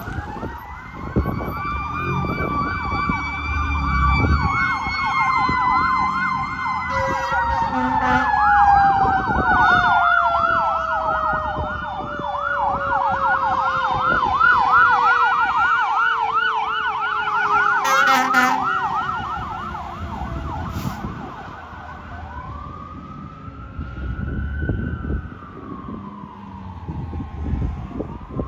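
Fire squad truck's sirens running: a fast yelp warbles throughout while a second siren tone glides slowly down in pitch. Two short air horn blasts come about a third and two thirds of the way in. Near the end the yelp gives way to a slow rising and falling wail.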